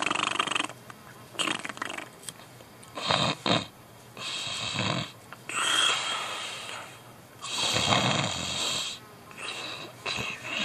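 A person making loud fake snoring sounds, about seven noisy snores in an uneven rhythm, voicing a passed-out drunk puppet.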